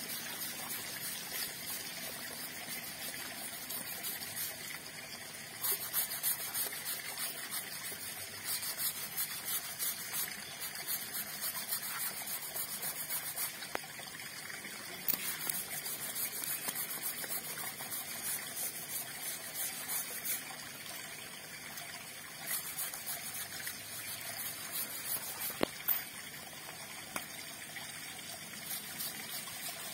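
Water running and splashing on a wet concrete floor as an elephant's foot is washed, with louder spells of spattering now and then.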